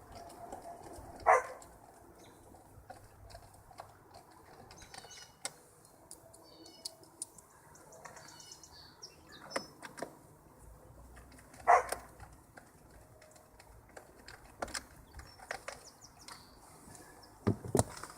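Irregular small clicks and knocks of hand tools and plastic trim as the screws are driven back into a steering column shroud. Faint bird chirps sit in the background, and two short, louder squeaks come about a second and a half in and again about twelve seconds in.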